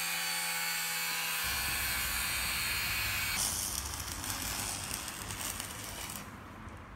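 An angle grinder cuts through a 14 mm steel bar with a steady grinding noise over a faint motor whine. About three and a half seconds in, it gives way to the steady sizzle of an electric arc welder joining the bar into a T, which stops shortly before the end.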